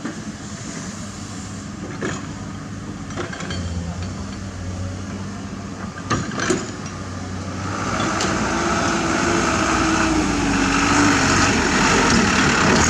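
Diesel engine of heavy construction machinery running, with a few sharp knocks in the first half. About eight seconds in, the machinery grows louder.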